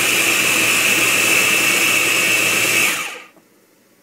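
Electric food processor pureeing canned black beans in their liquid: the motor runs steadily with a high whine, then winds down and stops about three seconds in.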